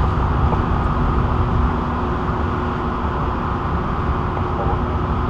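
Steady city street noise with a deep rumble, and a low steady hum from a running vehicle engine that sets in about half a second in.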